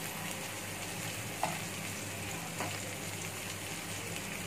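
Marinated chicken tikka pieces sizzling as they shallow-fry in oil in a nonstick pan, a steady frying hiss. A metal spatula turning the pieces gives two light clicks against the pan, about a second and a half and two and a half seconds in.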